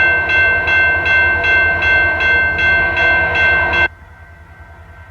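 Canadian Pacific Holiday Train locomotive's multi-chime air horn held in one long blast, pulsing about three times a second over the diesel engine's low rumble; the horn cuts off about four seconds in, leaving the engine running.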